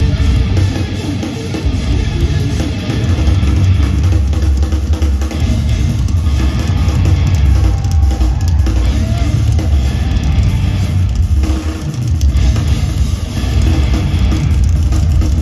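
Instrumental progressive metal played live by a band of two eight-string electric guitars and a drum kit, loud and heavy in the bass, with the drums prominent, in a large concert hall.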